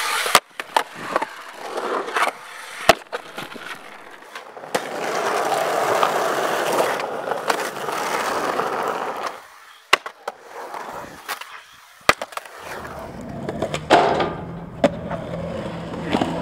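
Skateboard on concrete: sharp pops and landing slaps, and a long stretch of wheels rolling over rough pavement in the middle. Near the end the board's metal trucks grind along a curb.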